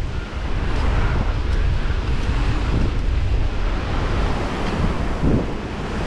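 Steady wind rush buffeting the microphone of a camera on a moving mountain bike, with the tyres rolling on asphalt underneath.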